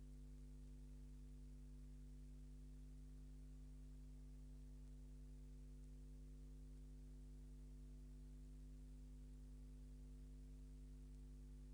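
Steady low electrical hum with its overtones over faint hiss, unchanging throughout; none of the pictured log work is heard.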